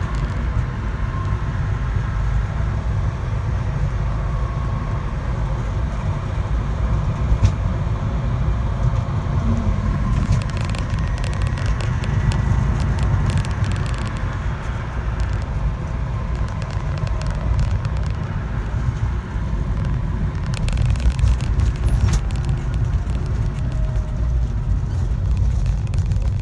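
A vehicle running with a steady low rumble. Fast runs of clicking come through about ten seconds in and again a little over twenty seconds in.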